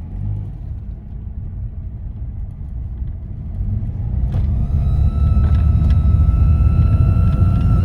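Daihatsu Mira L275S engine running with a steady low rumble; about four seconds in, a steady high-pitched whine joins in.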